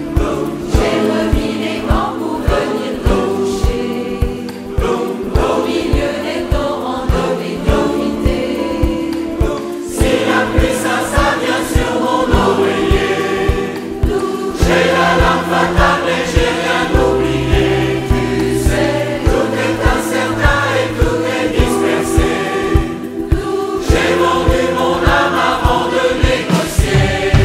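Large mixed choir singing a pop song in harmony, backed by a live band with a steady drum beat.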